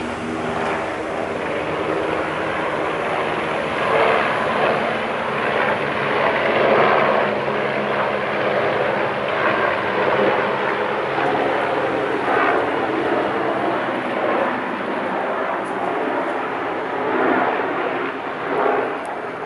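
Three helicopters flying over together: a steady drone of rotors and engines. Low steady tones sit under a rushing noise that swells and eases every few seconds.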